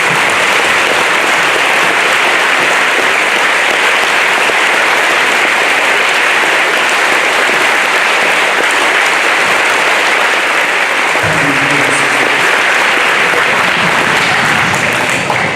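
Large crowd in bleachers applauding steadily, a dense even roar of clapping that stays level and eases off at the very end.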